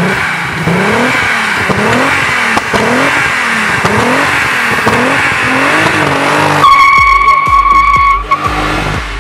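Turbocharged VR6 engine in a Golf 3 revved again and again, about eight quick rising revs in a row. Near the end a loud, steady high-pitched squeal holds for about a second and a half over a low rumble, then stops.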